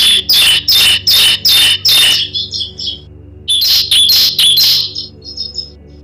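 Bar-winged prinia (ciblek) singing in runs of loud, sharp, evenly spaced notes, about three a second. A softer twitter follows after about two seconds, then a second run of about five loud notes, then softer chips.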